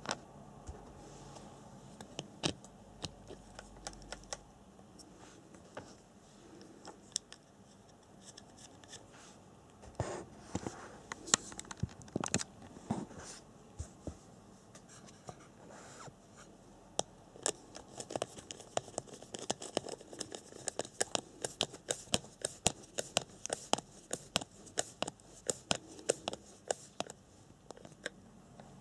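Small plastic and metal clicks and scrapes as a wheel is fitted to an RC buggy's hub and its wheel nut is tightened with a nut driver. The clicks are scattered at first and come thick and fast in the second half.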